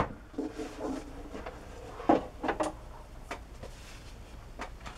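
Art supplies and sheets of watercolour paper being handled on a table: one sharp click at the start, then a few scattered soft knocks and taps.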